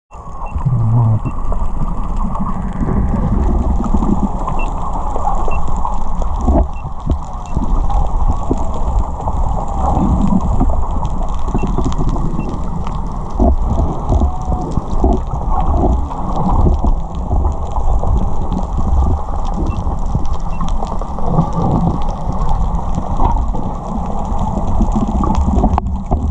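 Muffled churning water with frequent splashes and knocks, picked up by a snorkeler's camera in the water. It runs steady and loud, with almost nothing in the higher pitches.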